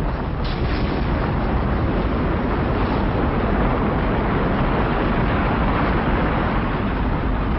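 A loud, steady rumbling roar with a heavy low end that sets in suddenly and holds without fading, like the roar of a weapons blast or launch.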